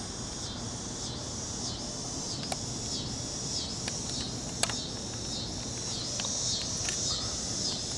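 Crickets chirping in a steady, high-pitched pulsing chorus, with two brief sharp clicks, about two and a half and four and a half seconds in.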